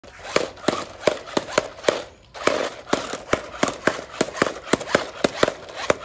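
Six-wheeled remote-control stunt car running on concrete: a quick, uneven series of sharp clacks, about three to four a second, over a steady hiss, with a short break a little after two seconds in.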